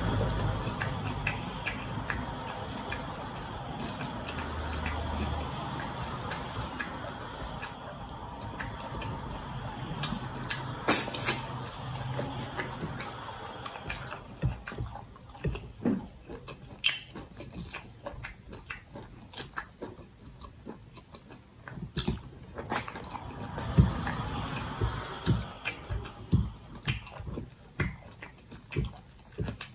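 Wet eating sounds: fingers squelching through thick soup and soft starch fufu on a plate, with chewing and lip smacking, a steady run of short, sticky clicks.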